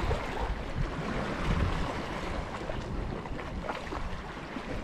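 Wind buffeting the microphone over the wash of sea water against shore rocks.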